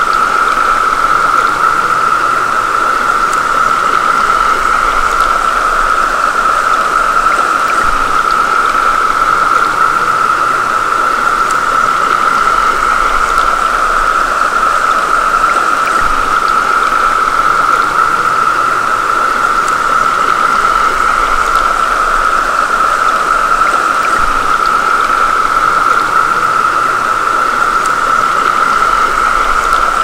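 Brood X periodical cicadas in full chorus: a loud, steady drone held at one high pitch throughout, over the rush of a stream riffle.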